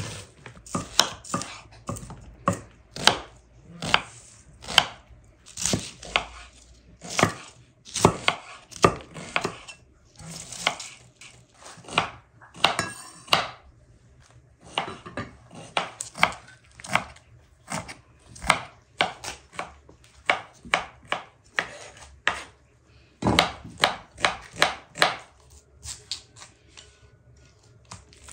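Knife cutting crisp raw vegetables, cabbage and cauliflower, on a wooden cutting board. Each crunchy cut ends in a knock on the board, about one a second in an uneven rhythm, with a longer crunching stretch partway through and a quick run of cuts near the end.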